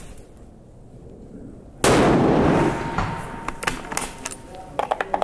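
A single rifle shot from an F-Class target rifle, a sudden loud report about two seconds in that rings on for about a second. Several sharp clicks follow as the bolt is worked.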